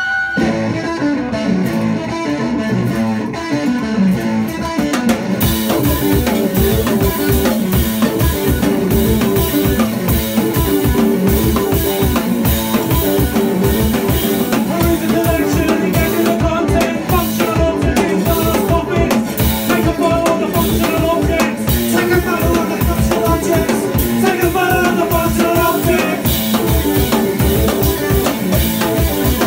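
Live indie-punk band playing a song: electric guitar alone at first, then the drum kit and the full band come in about five seconds in and keep a steady beat.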